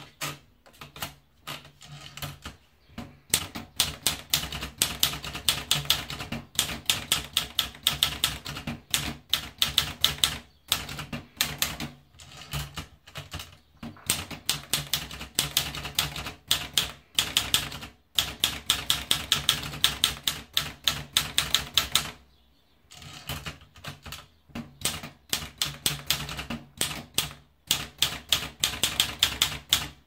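Olivetti Lettera 32 manual portable typewriter being typed on: quick runs of sharp key-and-typebar clacks, with a few short pauses between runs. The clicks are sparse for the first couple of seconds, then the typing goes steadily.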